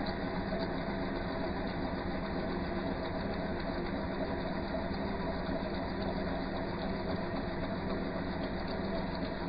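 A machine-shop machine tool running steadily, its motor giving an even mechanical hum.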